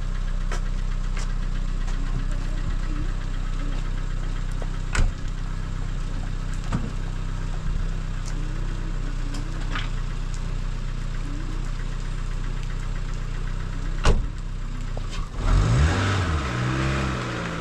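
An engine running steadily with a low, even hum, broken by two sharp knocks about five and fourteen seconds in. Near the end a louder engine sound swells and wavers up and down in pitch for about two seconds.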